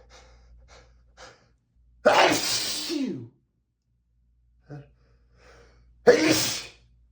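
A man sneezing twice: a loud sneeze about two seconds in, its voiced tail falling in pitch, and a second near the end. Short faint breaths come before each. These are allergic sneezes brought on by dust.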